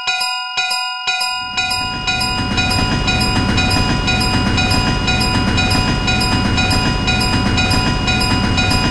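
Level crossing warning bell ringing, a repeating strike just under twice a second; about a second and a half in, a train starts passing with a steady low rumble while the bell keeps ringing.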